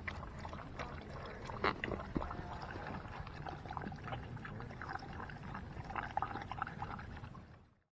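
Two Bernedoodles lapping water from a metal bowl, close up: an irregular run of wet slurps and small splashes that fades out near the end.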